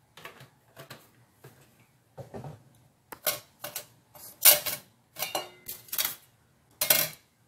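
Hands handling and rubbing boiled chicken pieces on a metal tray: a string of short scraping and rustling noises, about nine in all, the loudest a little past halfway and near the end.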